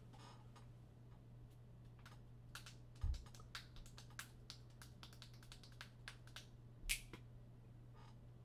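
Quick runs of light clicks and taps, with a low thump about three seconds in and another near seven seconds, over a steady low hum.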